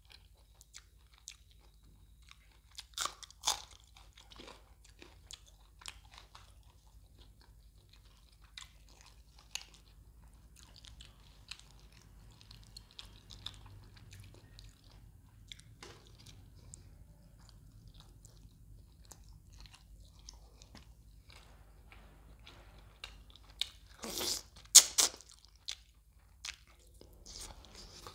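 A person eating fish curry with roti close to the microphone: wet chewing with sharp crunchy bites. The loudest crunches come about three seconds in and again near the end.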